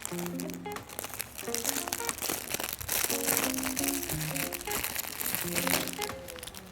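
Plastic packaging of a squishy toy crinkling and crackling as it is handled and opened, over background music with a simple melody.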